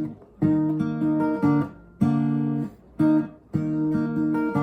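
Acoustic guitar strumming chords in four short phrases, with brief pauses between them.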